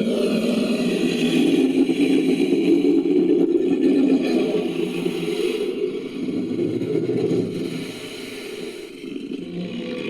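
Creature sound effect built from a megalodon sound: a long, low, rough growling roar that starts suddenly and lasts about ten seconds, easing off briefly near the end.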